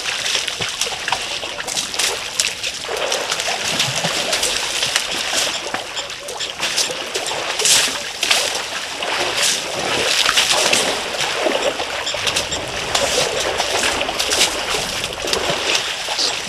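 African elephants splashing water and mud with their trunks in shallow water: a continuous run of irregular splashes and splatters.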